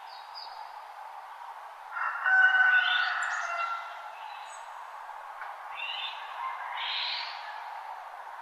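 Birds calling in a dawn chorus over a steady background hiss: a loud burst of several overlapping calls about two seconds in, lasting over a second, then shorter chirping phrases near the end.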